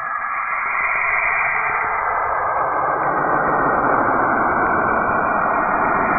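Saturn's radio emissions turned into sound: a dense, eerie rushing noise that swells over the first few seconds, with faint steady tones inside it, like horror-film background music.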